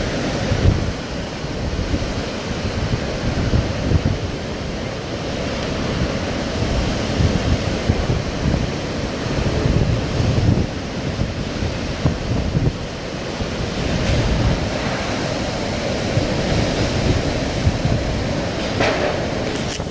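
Hurricane wind gusting hard, buffeting the microphone with irregular low rumbles over a steady rushing roar of wind and rain, with a brief click just before the end.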